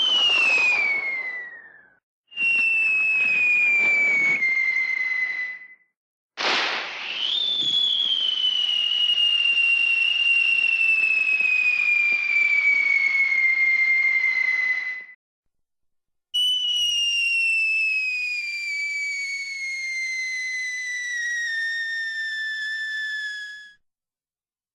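Cartoon falling sound effects: four separate whistle tones, each sliding slowly downward in pitch over several seconds, the third and longest about eight seconds and starting with a sudden sharp burst.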